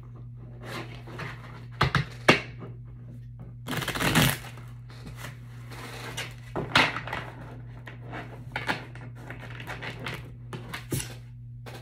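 Oracle cards being shuffled and handled on a table: scattered rustles and taps, with a sharp tap about two seconds in and a longer shuffling rush about four seconds in.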